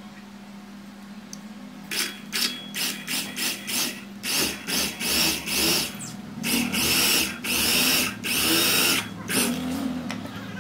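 Electric drill boring through the edge of an MDF panel into a wooden corner strip. About two seconds in it starts with a run of short trigger bursts, then runs in longer spells as the bit goes in, and stops near the end.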